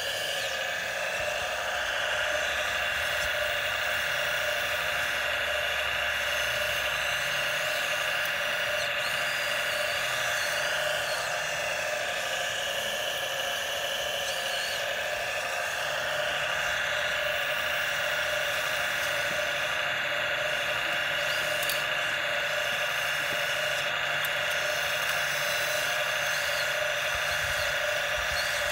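Huina RC excavator's small electric motors whining steadily as the boom, arm and bucket work and the upper body swings, the pitch shifting briefly around the middle.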